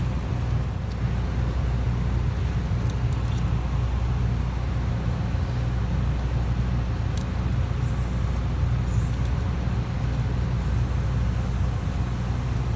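A steady low mechanical hum, like an engine or machine running, with a few faint clicks over it.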